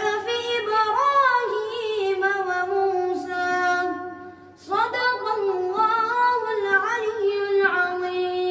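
A boy reciting the Quran from memory in a melodic chant, with long held notes. Two phrases, with a short breath between them about four seconds in.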